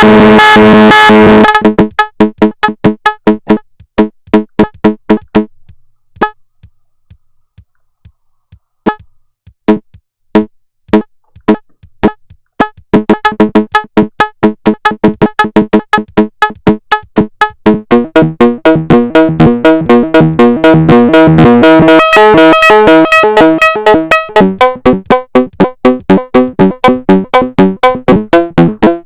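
Make Noise 0-Coast synthesizer playing a fast arpeggio of short staccato notes. It thins to sparse single notes with near-silent gaps for several seconds, then builds back into a dense, bright run before settling into a steady repeating pulse.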